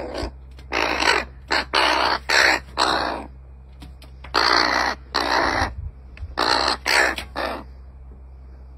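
Crow cawing loudly at close range: a run of about five harsh caws, a pause of about a second, then another run of about five.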